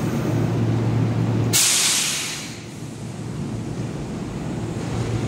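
A stopped Kintetsu electric train hums steadily at the platform. About a second and a half in comes a sudden loud hiss of released compressed air, which fades out over about a second, and the hum drops away with it.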